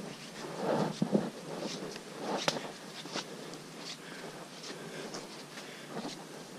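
Footsteps scuffing along a dirt forest trail, with irregular rustling of clothing and backpack and a sharper click about two and a half seconds in.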